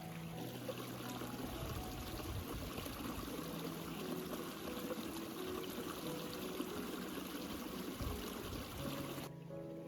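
Running, pouring water, a steady hiss that cuts off suddenly near the end, over soft background music.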